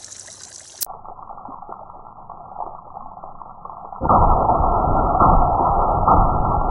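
A 7.62×39mm SKS Paratrooper carbine being bump-fired, heard as muffled, low-pitched gunfire. A loud, continuous rumble starts suddenly about four seconds in, with a fresh pulse about once a second. Before that there is only a faint dull hiss.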